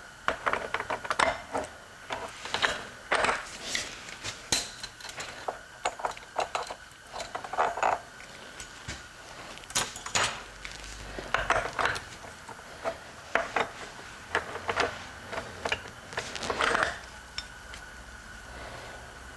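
Metal hand tools and engine parts clinking and knocking against each other and the workbench in an irregular clatter, as a Harley-Davidson Ironhead engine is taken apart.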